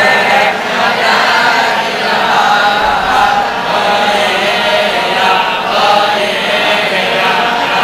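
A group of men reciting Hindu scripture together in a steady unison chant, many voices at once.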